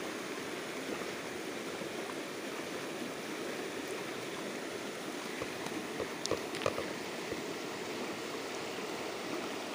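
Shallow river running over rocks: a steady rush of flowing water, with a few faint clicks about six to seven seconds in.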